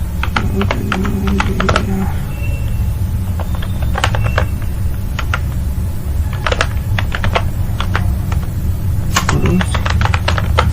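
Computer keyboard keys clicking as someone types in short bursts of quick keystrokes with pauses between, over a steady low hum.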